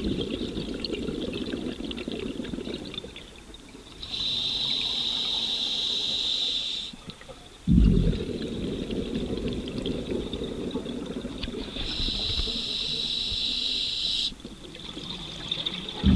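Scuba diver breathing through a regulator underwater: a hissing inhale of about three seconds, twice, each followed by a sudden burst of exhaled bubbles that go on gurgling for several seconds.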